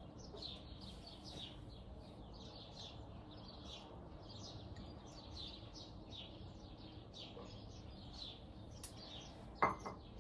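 Small birds chirping continuously, many short high chirps a second, with a short knock about nine and a half seconds in.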